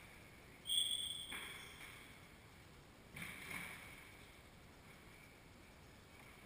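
Court shoes squeaking and scuffing on a hardwood squash court floor: one sharp high squeak lasting about half a second, about a second in, followed by a softer knock and, around three seconds in, a couple of soft thuds of footsteps.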